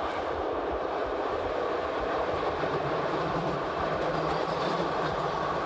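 Passenger train running along the track, heard from an open carriage window: a steady rush of wheels on rail and passing air, with scattered low knocks and a low hum coming in about two seconds in.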